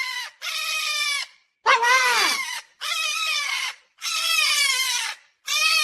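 Cockatoo squawking in a run of about five drawn-out calls, each under a second, with short gaps between them.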